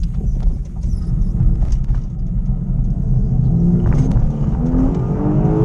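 BMW E36's M50B30 stroker straight-six running under way, heard from inside the cabin: a steady low drone, then the revs climb with a rising engine note about three and a half seconds in as the car accelerates.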